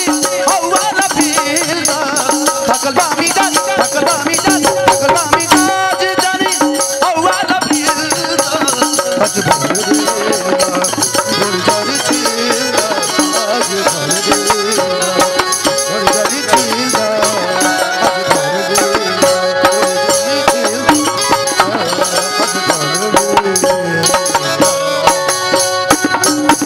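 Live Bhojpuri folk song over a band amplified through the PA: a man singing into a microphone over a steady, even percussion beat.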